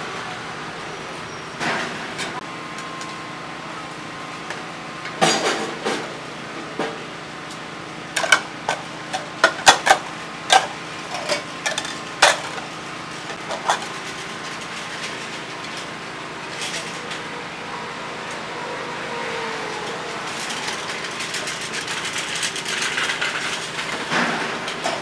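Noodle-shop kitchen clatter: ceramic bowls and metal utensils knocking and clinking over a steady background hum. The knocks come thickest in the middle, as a quick run of sharp clinks.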